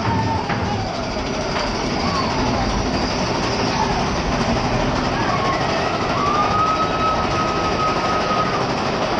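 Mine-train roller coaster cars rolling along the track with a steady rumble and clatter, their wheels squealing on and off. One long, high wheel squeal begins about six seconds in and lasts over two seconds.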